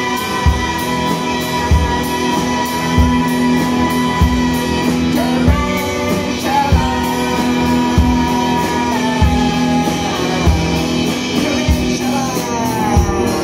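Live rock band: a man singing in long held, shouted notes over electric guitar and a drum kit. The held vocal line slides down near the end.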